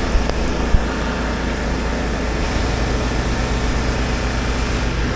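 A nearby gas engine running steadily, with a low hum under a hiss of spraying water: pressure-washing equipment at work. A couple of light knocks of the microphone being handled within the first second.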